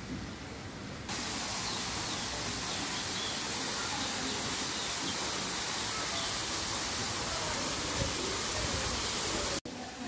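A steady, even rushing hiss that starts abruptly about a second in and cuts off suddenly near the end.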